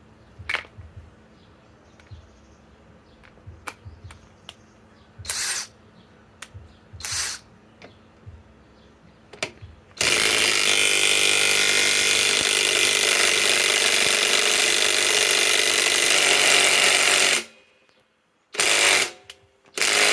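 Flex FX1451 mid-torque cordless impact wrench hammering, after two short trigger blips: one steady full-power run of about seven seconds that stops abruptly, then two more short bursts near the end. Light clicks of tool handling come before the long run.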